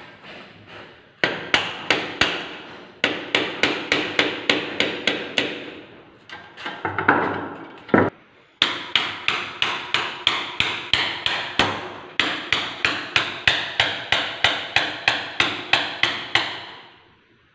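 Hammer tapping steadily, about three blows a second, on a screwdriver used as a drift, driving the rocker shaft through the rockers and rocker springs on a cylinder head. The tapping breaks off briefly twice near the middle and stops just before the end.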